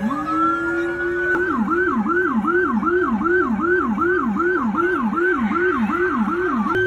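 Emergency vehicle siren: a rising wail that switches about a second and a half in to a fast, even yelp of about two and a half cycles a second.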